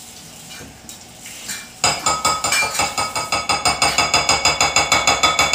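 A utensil beating eggs and sour cream in a glass mixing bowl, clinking rapidly and evenly against the glass about seven or eight times a second, starting about two seconds in.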